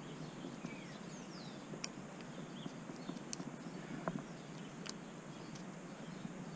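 A 3 mm hex key tightening the casing screws of a Bafang mid-drive e-bike motor: a few light, sharp clicks, spaced a second or so apart, over a steady background hiss.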